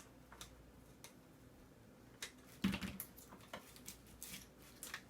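Scattered light clicks and taps of small tools and parts being handled while an electrical outlet box is taken apart, about ten irregular ticks with a slightly louder knock a little under three seconds in.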